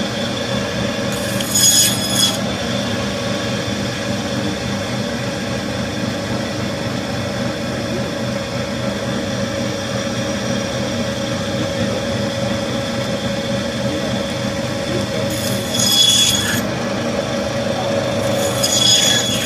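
Meat band saw running steadily while a whole hilsa fish is fed through its blade and cut into steaks. A harsher rasp rises three times as the blade bites through the fish: about two seconds in, about sixteen seconds in, and just before the end.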